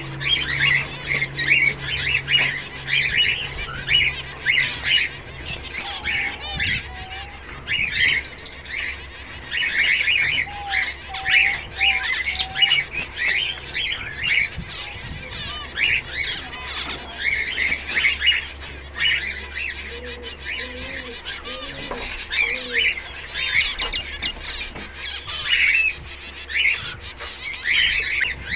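A flock of zebra finches calling all at once: many short, quick, overlapping calls with no pause.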